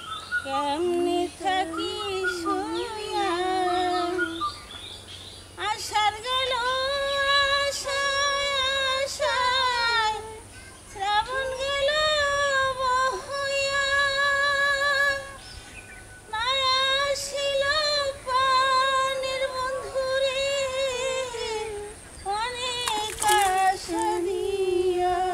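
A woman's voice singing a slow melody unaccompanied, in long held, wavering notes, phrase by phrase with short pauses between.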